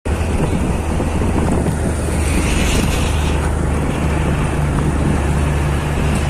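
Heavy truck's diesel engine running at a steady low speed, with wind buffeting the microphone.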